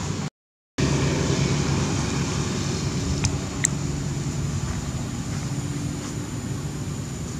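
Steady low mechanical hum, like an engine running or traffic nearby, that cuts out completely for about half a second near the start. Two short high chirps come about three seconds in.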